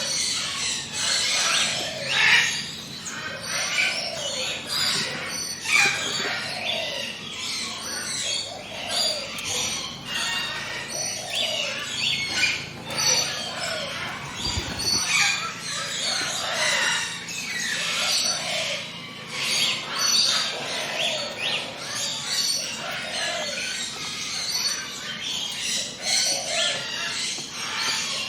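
A chorus of many birds singing and chirping, with dense overlapping high calls and a lower call that repeats every second or two.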